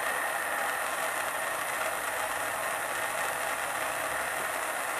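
Handheld gas torch flame hissing steadily while it heats a copper pipe fitting to sweat-solder the joint.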